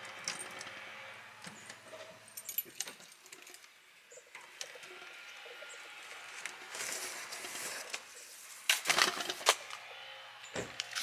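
Keys jangling and sharp metal clicks as a key is worked in a metal mailbox lock, with a louder burst of key-and-metal rattling near the end.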